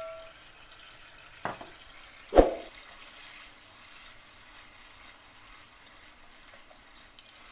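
Slotted spatula stirring coconut-milk curry gravy in a non-stick pan over a faint steady sizzle. There are two short knocks against the pan, about one and a half and two and a half seconds in, the second louder.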